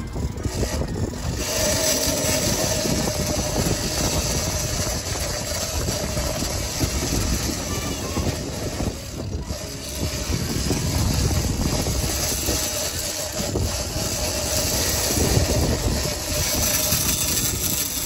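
Outboard motor running on a small sportfishing boat, with water rushing along the hull and wind on the microphone; a faint steady whine sits under the noise for most of the time.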